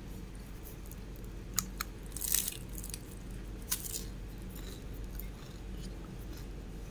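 Small meal noises of food and tableware: a few sharp clicks, then a short crunchy rustle about two seconds in, over a steady low hum.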